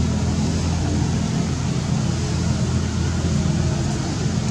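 A steady low mechanical hum or rumble, like an engine or motor running, holding level throughout.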